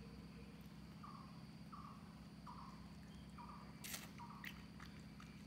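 Faint series of five short, falling chirps, about one a second, over a steady low hum, with a sharp click about four seconds in.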